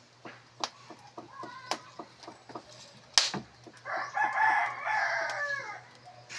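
A rooster crowing once, a long call of about two seconds that starts about four seconds in. Short sharp crackles and clicks from the wood fire run throughout, with one loud snap about three seconds in.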